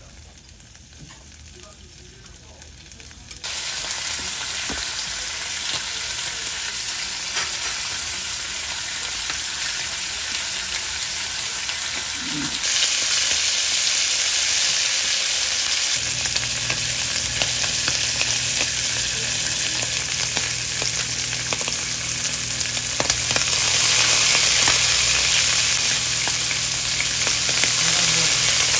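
Slices of duck meat sizzling as they fry in a nonstick pan, stirred with wooden chopsticks. The sizzle starts suddenly a few seconds in and gets louder about halfway through.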